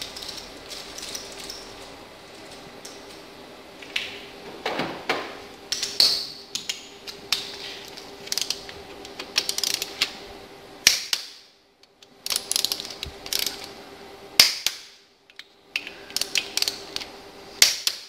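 Ratchet torque wrench clicking as it winds in the fuel pump gear bolts, with now and then a sharper single click followed by a pause, as the wrench set to 41 newton metres reaches torque. A faint steady hum runs underneath.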